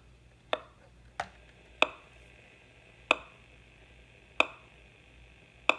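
Gigahertz Solutions HF35C RF meter's audio output popping six times at uneven intervals, about half a second to over a second apart. Each sharp pop is the meter picking up a pulse from the Fitbit Blaze's always-on Bluetooth radio.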